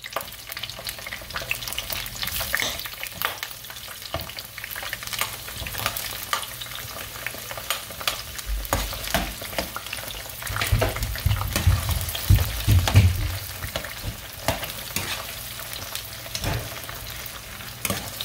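Sliced onions sizzling and crackling in hot oil in a nonstick frying pan, with a spoon stirring through them. A run of low bumps comes about halfway through.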